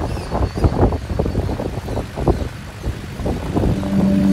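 A small Allis-Chalmers tractor engine running unevenly at low speed, with wind buffeting the microphone. Steady musical notes come in near the end.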